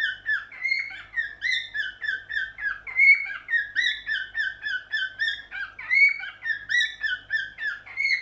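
Cockatiel singing: an unbroken run of short whistled chirps, about three to four a second, each note bending up or down in pitch.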